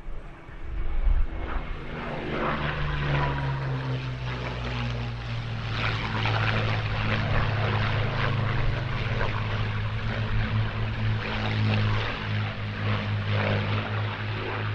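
Rolls-Royce Merlin-engined fighters, a Spitfire chasing a Hispano Buchón, flying past low in a mock dogfight: the piston engine drone swells about two seconds in with a falling pitch as they pass, then stays loud and rough.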